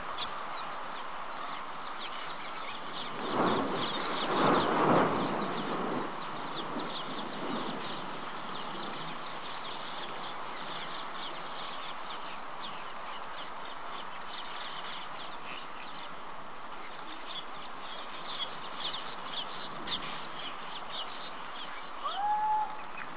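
Birds chirping and calling over a steady outdoor background, with a louder noisy stretch about three to six seconds in and a short gliding bird call near the end.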